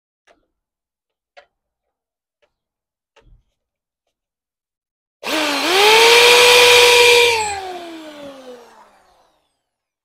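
Corded electric drill spinning up with a quickly rising whine about five seconds in, running at a steady pitch for about two seconds, then winding down with a falling pitch. The drill is marking a hole through the car's front bumper. A few faint clicks come before it.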